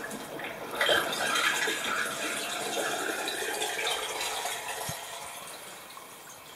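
Flood-test water draining out of a shower pan's floor drain, running louder from about a second in and then tapering off near the end as the pan empties.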